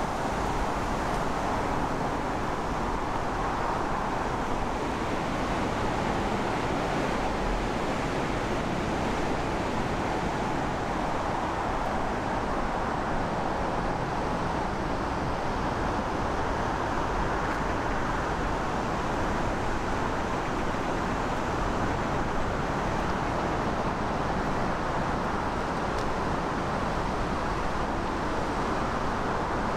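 Steady, unbroken rushing outdoor ambience beside a river lock, with no single event standing out.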